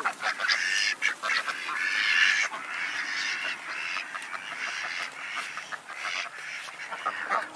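A group of waterfowl calling over and over, with many calls overlapping, while being fed.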